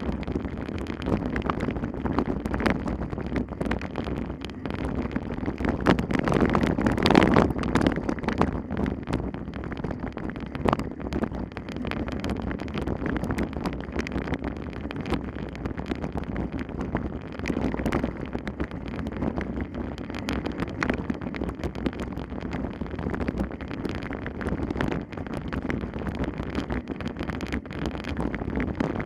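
Wind buffeting the microphone of a camera riding on a bicycle, with constant rattling and knocking from the bike over rough ground, a little louder about seven seconds in.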